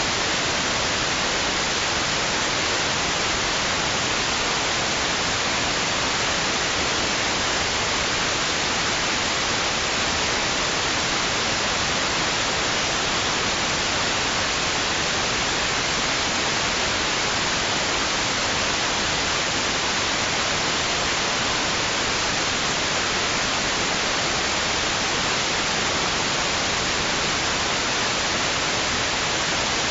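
Steady white noise: an even, unchanging hiss with no swells or breaks, used as a sleep aid for babies.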